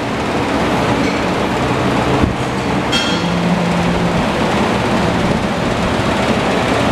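Loud, steady mechanical rushing noise with a faint low hum.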